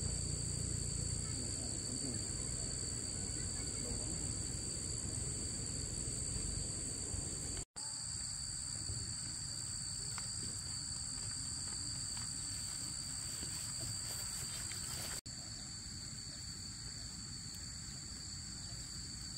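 Steady, high-pitched insect chorus made of two continuous tones, over a low rumbling background. The sound drops out for an instant about 8 seconds in and again about 15 seconds in.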